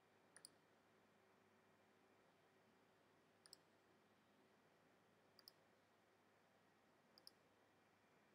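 Four faint mouse clicks, a second or two apart, over near silence. Each is a quick double tick, the button's press and release, as items are selected in a file-picker dialog.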